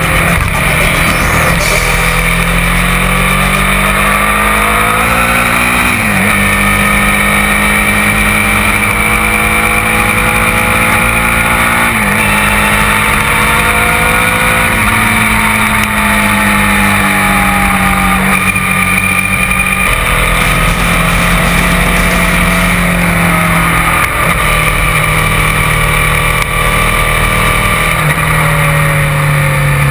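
Motorcycle engine heard from on board, rising in pitch under acceleration with two sudden drops for upshifts, then easing off and picking up again, over heavy wind rush on the microphone.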